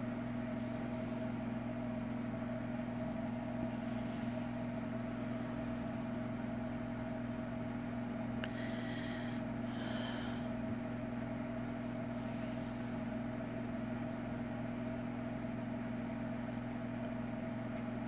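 Steady low hum of a running motor or household appliance, with a few faint short high sounds about halfway through.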